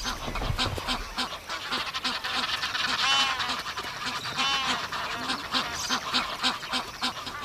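A flock of Egyptian geese calling together: a dense chorus of short, rapid, harsh honks, with a couple of longer drawn-out calls about three and four and a half seconds in.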